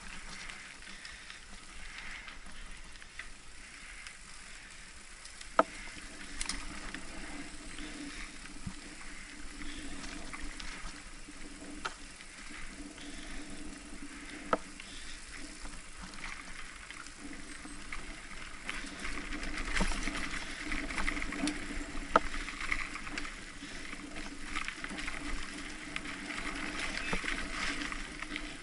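Mountain bike rolling along a dirt trail: steady rolling noise from the tyres and the bike, with a few sharp clicks or knocks scattered through it.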